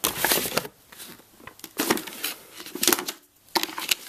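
Plastic food-storage containers and their cardboard packaging being handled: an irregular clatter of clicks, knocks and rustles as they are lifted out of a box and set down.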